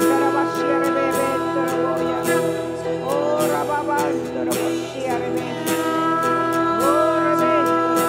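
Live worship music: an acoustic guitar and steady sustained chords, with a voice singing gliding notes over them.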